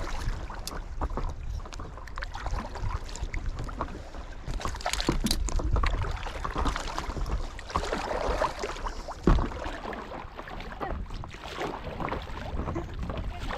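Paddles dipping and water splashing and lapping around stand-up paddle boards, with wind buffeting the microphone as a steady low rumble. A sharper knock stands out about nine seconds in.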